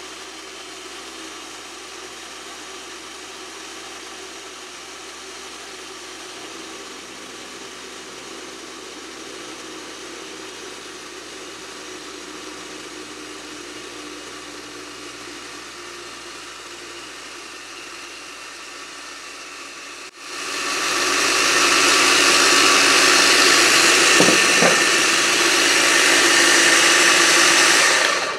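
Kenwood kMix food processor motor running steadily as it blends oil into mayonnaise. About two-thirds of the way in it becomes much louder, then stops just before the end. Its sound is what tells the cook the emulsion is thickening: the machine starts to struggle.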